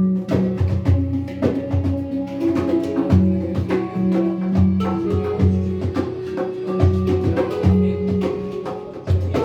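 A hang (handpan) and a pimak played by hand in an improvised duet: struck notes ring and overlap in a melody over a low note that keeps coming back.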